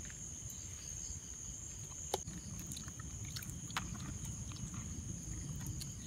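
Steady, high-pitched chirring of night insects over a low background rumble, with a few faint clicks, the sharpest about two seconds in.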